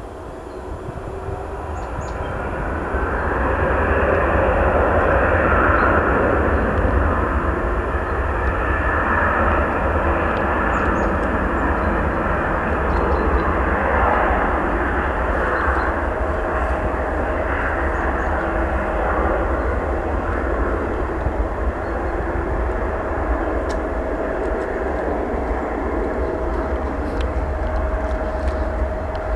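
Twin-engine jet airliner on its take-off roll. The engines spool up to take-off power over the first few seconds, then run loud and steady with a faint steady whine as the aircraft accelerates down the runway.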